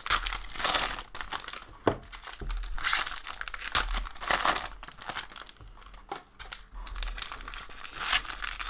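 Foil wrappers of 2021 Topps Series 1 jumbo baseball card packs crinkling in irregular bursts as they are handled and shuffled.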